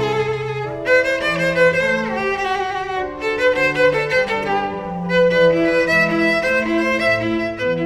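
Cello and pipe organ playing together: a bowed cello line moving over organ accompaniment, the notes changing several times a second.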